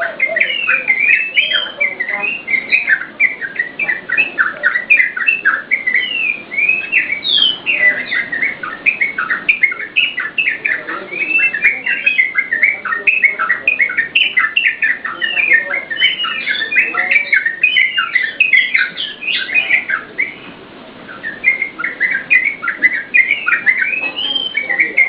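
Yellow-vented bulbul (trucukan) singing in a dense run of quick, bubbling, up-and-down chirping phrases that barely pause, with a short lull about twenty seconds in.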